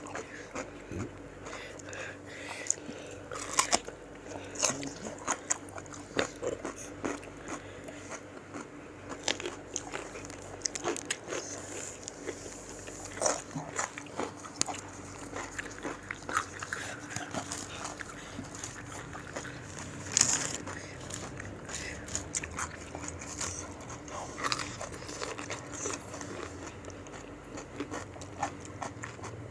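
People crunching into and chewing raw fruit slices: irregular crisp bites and chewing, with a few louder crunches.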